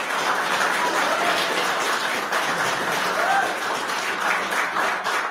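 A crowd in a meeting room applauding, with a few voices calling out over the clapping.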